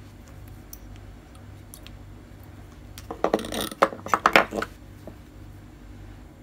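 A brief burst of metallic clattering and clicks, like small metal objects being handled, about three seconds in, over a steady low hum.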